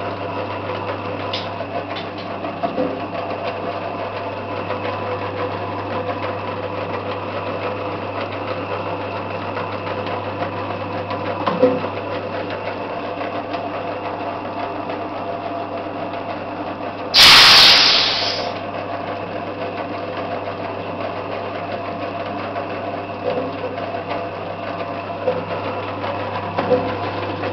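MC-Bait boilie-rolling machine running with a steady hum as bait mix is rolled into round boilies. A loud rushing burst of noise lasting about a second cuts in past the middle, with a few light knocks here and there.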